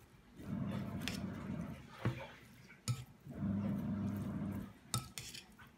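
Hands kneading and squishing raw ground-beef filling with chopped carrot, onion and egg yolk in a glass bowl. It comes in two low, squelching stretches, with a few sharp clicks in between.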